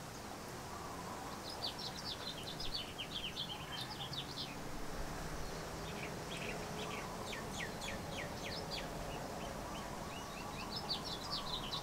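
A bird singing: three runs of rapid, high chirping notes, each a few seconds long, over a faint steady background hum.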